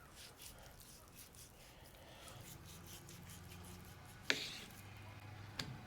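Faint knife cutting and scraping as fat and silver skin are trimmed off a raw beef eye of round, with a sharp click about four seconds in.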